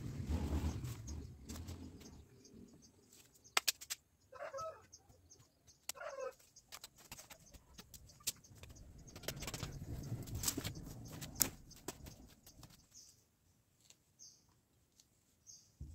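Rustling through undergrowth, with scattered snaps and knocks of dry stems and brush. A bird calls briefly twice in the first half.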